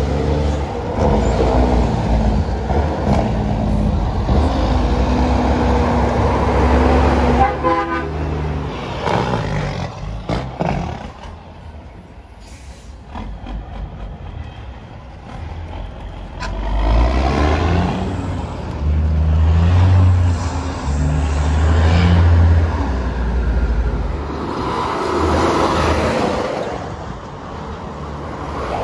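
Heavy diesel truck engine running, its note rising and stepping as it pulls, with a horn sounding.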